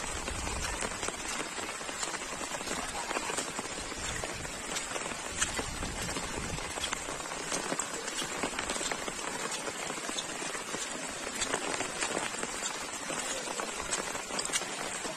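Steady rain falling on wet paving and standing water: an even hiss made of many small drop ticks.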